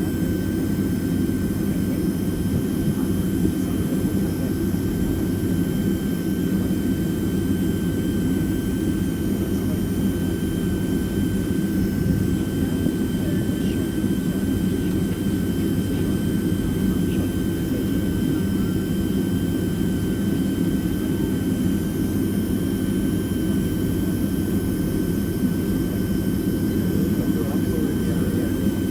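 Steady cabin noise inside a Boeing 767-300ER taxiing on its jet engines: an even low rumble with a thin, steady high whine over it.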